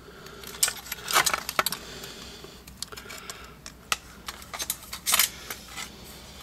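Irregular light metallic clicks and clinks from hands handling a furnace control board and its small metal fittings. There is a cluster of clicks about a second in, more from about four seconds, and the loudest click a little after five seconds.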